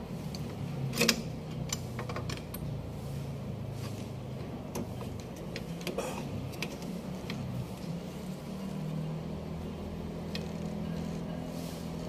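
Small metallic clicks and taps of rear drum-brake shoe hardware being handled and fitted on the backing plate of a Mazda 323, with sharper clicks about a second in and again around six seconds, over a steady low hum.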